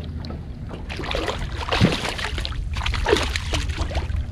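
A hooked speckled trout thrashing and splashing at the water's surface beside the boat as it is being landed, with water sloshing and a steady low wind rumble on the microphone.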